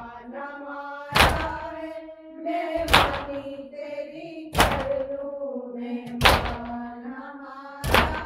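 Matam: mourners striking their chests in unison, a loud strike about every 1.7 seconds, five strikes in all. Between the strikes a voice chants a nauha lament in long held notes.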